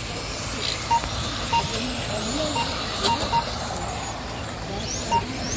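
Electric RC touring cars racing on an asphalt track, their motors whining and sweeping up and down in pitch as they accelerate and brake. Six short, clear beeps come at irregular intervals: the lap-timing system counting cars as they cross the line.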